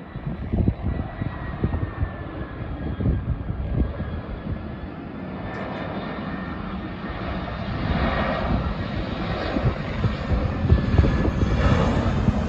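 Jet engines of an easyJet Airbus A320-family airliner on final approach, a steady rumble that grows louder as it nears, with a faint high whine.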